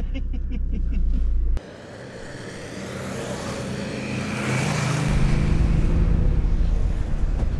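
A car running on the road. The sound cuts off abruptly about a second and a half in, then a steady engine note with road noise swells up and stays loud.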